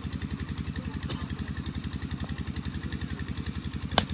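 An engine running steadily with a fast, even low pulse throughout. About four seconds in, a single sharp crack as a cricket bat strikes a plastic ball.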